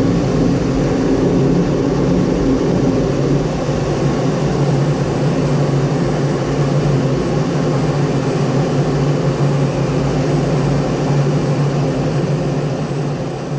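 Eurofighter Typhoon's twin EJ200 turbofans and rushing airflow heard from inside the cockpit in flight: a loud, steady jet noise with a low hum, fading near the end.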